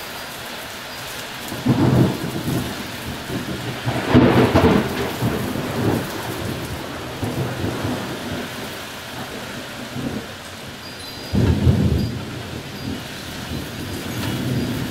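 Thunderstorm: heavy rain pouring steadily, with three loud rumbling claps of thunder, about two seconds in, around four seconds in (the loudest) and near eleven seconds in, each dying away over a second or more.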